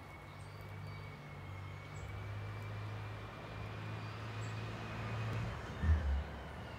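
Low, steady rumble of a vehicle engine running, with a faint slowly wavering whine above it. A couple of short low thumps come near the end.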